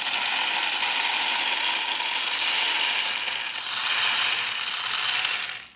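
Unpopped popcorn kernels pouring from a glass measuring cup into a cardboard tube with aluminum foil inside: a dense, steady rattle of many tiny clicks that stops just before the end.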